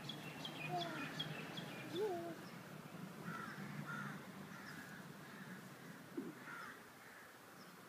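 Crows cawing now and then and small birds chirping, with a few short squeaks from a toddler.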